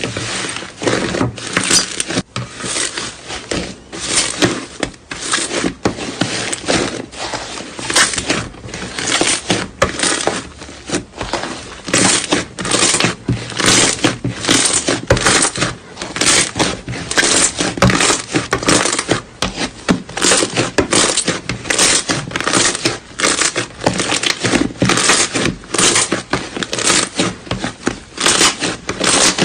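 Slime being squeezed and pressed by hand, making crackling, popping squelches over and over, roughly twice a second.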